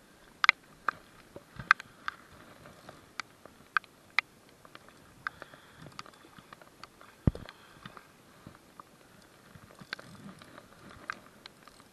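Scattered, irregular sharp ticks and taps on a rod-mounted camera and spinning rod, with one dull knock about seven seconds in.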